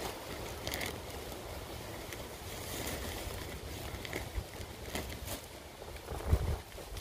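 Clear plastic bag crinkling in short rustles as it is handled, over a steady wash of wind noise, with a low thump a little before the end.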